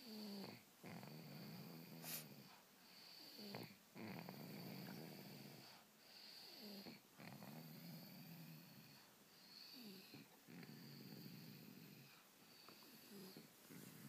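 Quiet snoring in a steady rhythm, about one snore every one and a half to two seconds, each a low rattling buzz.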